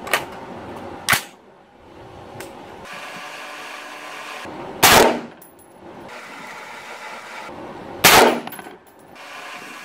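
AR-15 rifle fired in slow single shots. The two loudest shots come about five and eight seconds in, each with a short echoing tail, and two lighter, sharper reports sound near the start.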